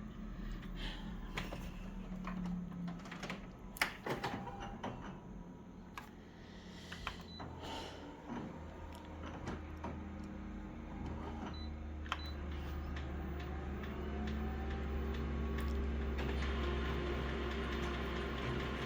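Paper and small pieces being handled with scattered clicks and taps, then an office photocopier starting up and running with a steady hum that grows louder for the last few seconds.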